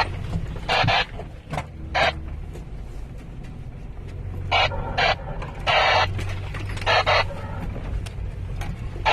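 Off-road vehicle's engine running with a steady low hum, broken by about six short, harsh noisy bursts from the rough ride, the longest about two-thirds of the way through.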